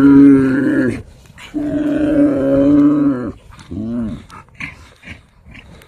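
Yak calling: two long, low, drawn-out calls, then a shorter one that rises and falls in pitch, followed by a few short sounds.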